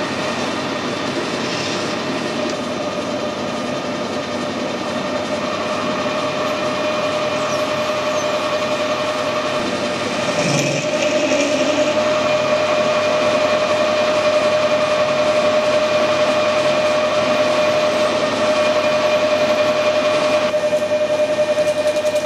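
Metal lathe running with a parting blade cutting into a metal bar: a steady machine whine over the noise of the cut, getting louder about ten seconds in. The blade is chipped but still cutting.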